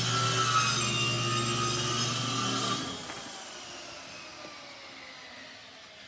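Electric power tool running steadily, then switched off about three seconds in and winding down to a fading hum.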